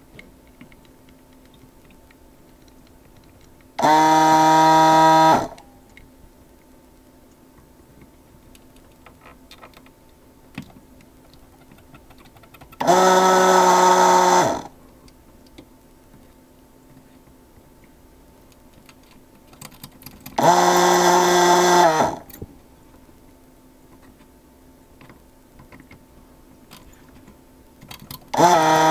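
Desoldering station's vacuum pump switching on in short bursts of about a second and a half, a steady buzz each time, three times with a fourth starting near the end, as molten solder is sucked from a failed transistor's pins.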